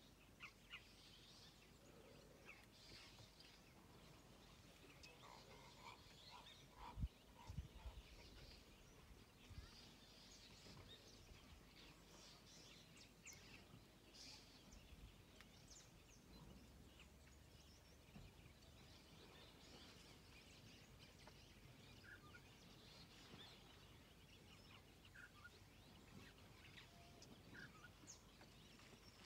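Near silence: faint, scattered bird chirps over a quiet background, with a few low thumps about seven seconds in.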